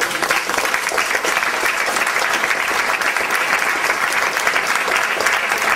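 Audience applauding: many hands clapping, steady in level.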